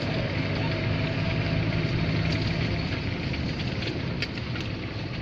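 Engine and road noise inside the cab of a GAZelle van driving in city traffic: a steady hum, whose low tone eases about three seconds in.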